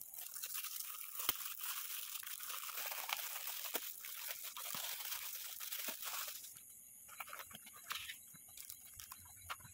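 Shiny red gift-wrap paper crinkling and tearing as a present is unwrapped by hand. The crackling is dense for about six and a half seconds, then thins to a few scattered rustles and clicks.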